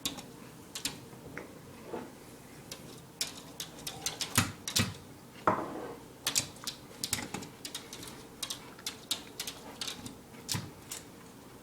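A puppy's claws and paws tapping and scrabbling on a porch floor: irregular sharp clicks, some in quick runs, with a few louder knocks near the middle.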